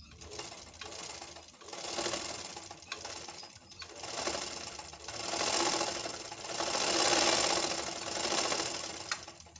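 Black domestic sewing machine running under its electric motor, driven through the motor belt, whirring and clattering. It speeds up and slows several times in surges.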